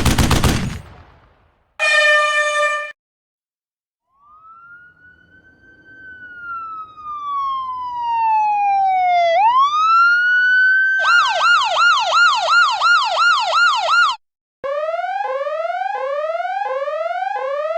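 Electronic siren sound effects: a slow sweep that rises, falls steadily and swoops back up into a fast yelping wail, then a run of quick rising sweeps, about two a second. Before them come the tail of a burst of gunfire and a short horn blast.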